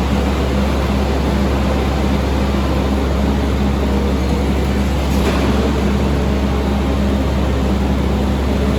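Lefort Trax600 shear/baler running steadily with a loud, even drone from its hydraulic power unit, with a faint clank about five seconds in.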